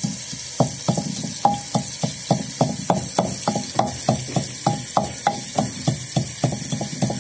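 Long wooden pestle pounding garlic, ginger, green chillies and green onion tops in a terracotta mortar: regular strokes, about three or four a second, starting about half a second in.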